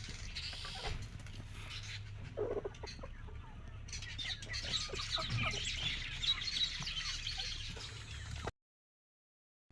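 Chickens clucking, with a run of small high-pitched chirps in the middle and a low steady hum underneath; the sound cuts out to silence about a second before the end.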